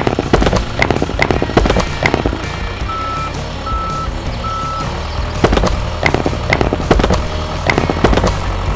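A construction vehicle's engine running under repeated clattering knocks, with three short, evenly spaced beeps of a reversing alarm about three seconds in.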